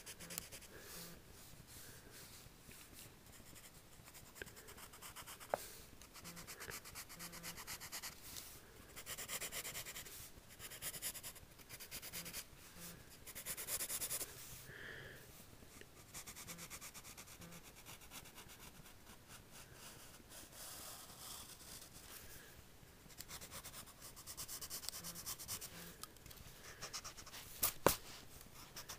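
Wooden graphite pencil scratching across lined notebook paper in short, on-and-off drawing strokes, with a sharp tap near the end.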